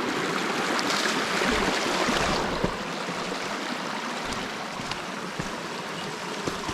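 A shallow rocky creek running and babbling over stones, a little louder for the first two seconds or so, with a few faint knocks.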